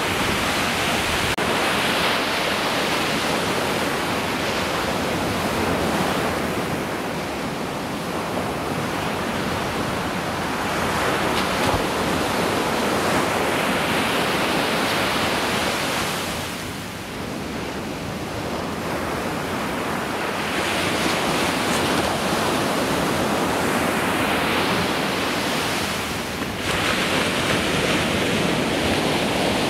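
Ocean surf breaking and washing up a sandy beach: a continuous rushing wash that swells and eases as the waves come in.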